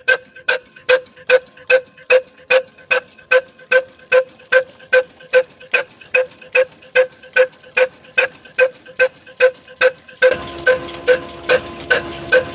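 Hassan Company 'black' slow-speed diesel engine (22 HP, 275 rpm) running steadily: sharp, ringing exhaust beats at about 2.3 a second, one firing every two turns of the crankshaft. About ten seconds in a steady hiss joins the beats.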